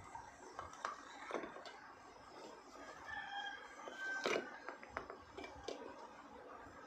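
Scattered faint taps and clicks of a clay pot and slate pieces being handled on a steel plate, the loudest a little after four seconds in. A rooster crows faintly in the background around the middle.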